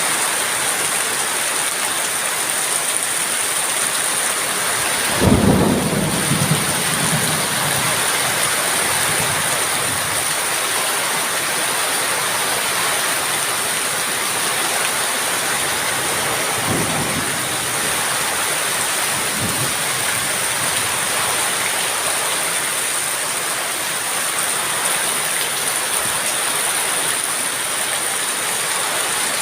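Steady heavy rain, with a sudden crack of thunder about five seconds in that rolls off in a rumble over several seconds, and fainter rolls of thunder later on.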